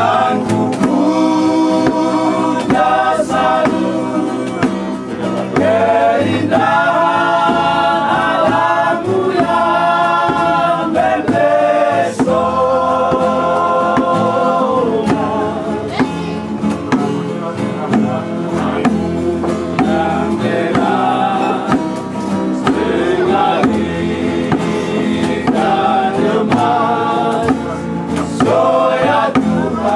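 Music: several voices singing a song together over acoustic guitar accompaniment.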